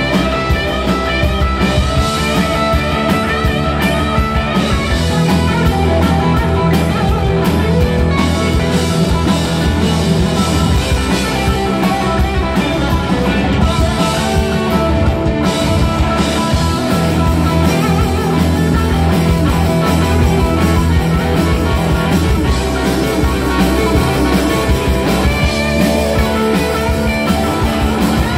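Rock band playing live, loud and continuous: electric guitar, electric bass and drum kit.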